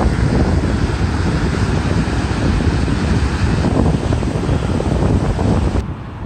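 Muddy flash-flood water rushing down a wash, a loud steady roar mixed with wind buffeting the microphone. The sound drops off suddenly near the end.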